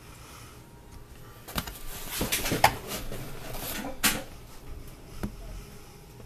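Hands handling a cardboard shipping box and rustling the packing sheet inside, with a few light knocks against the box; the rustling is loudest from about one and a half to four seconds in.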